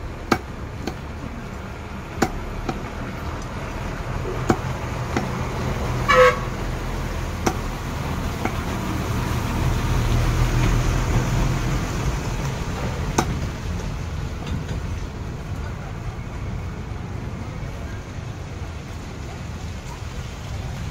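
Cleaver chopping a rohu fish into pieces on a wooden log block: sharp, irregular knocks every second or two. A vehicle horn toots briefly about six seconds in, over a steady rumble of street traffic that swells around ten seconds in.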